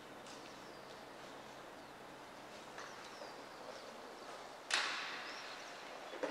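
Faint background noise with a few faint high chirps, then a sudden short whoosh about three quarters of the way in that fades away over about a second.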